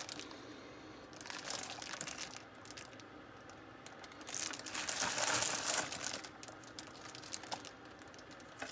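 Clear plastic bag crinkling as a router wrapped in it is handled and turned over, in uneven rustles that are loudest a little past the middle.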